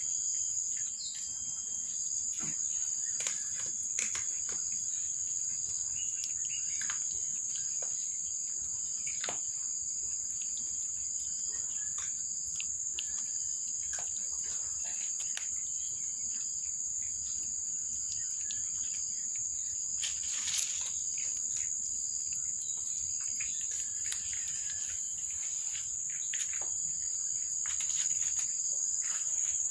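A steady, high-pitched insect drone, with scattered small clicks and ticks from kittens eating shredded chicken off a plastic tray.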